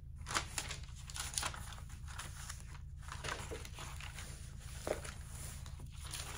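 Rustling and light knocks of items being handled and moved about, over a low steady hum.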